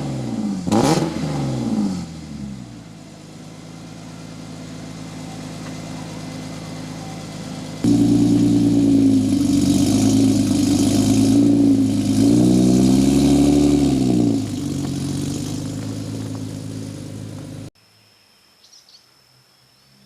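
E46 BMW M3's S54 straight-six, breathing through aftermarket headers and a gutted stock muffler: a throttle blip falls back to a steady idle. About eight seconds in it gets suddenly louder, with the revs wavering up and down and one rev rising and falling. Near the end the engine sound cuts off abruptly, leaving faint background with a thin high tone.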